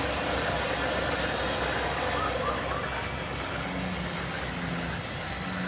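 Sawmill band saw running steadily while boards are fed through it and sawn, a continuous machine noise with a low hum. A lower tone comes and goes in the second half.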